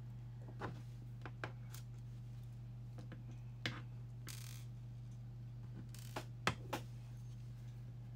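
Light clicks and taps from handling a small rubber RC crawler tire on a stamped-steel beadlock wheel, a handful in all with the sharpest about two-thirds through, plus a brief rustle near the middle, over a steady low electrical hum.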